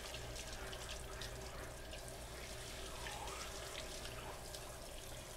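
Tap water running steadily from a sink sprayer over hands rinsing a roasted poblano chile, washing off its charred skin and seeds, with small splashes.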